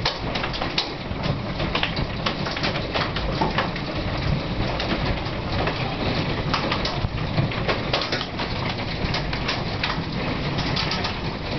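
Hailstones striking window glass: a dense, irregular patter of sharp ticks over a steady rushing noise.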